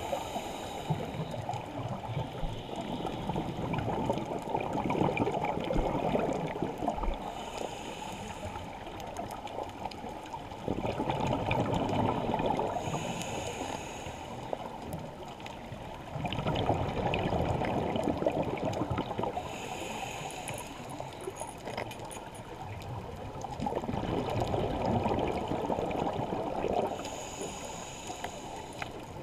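Scuba diver breathing through a regulator underwater: a short hissing inhale, then a longer gurgling rush of exhaled bubbles. The cycle repeats about every six seconds, about five breaths in all.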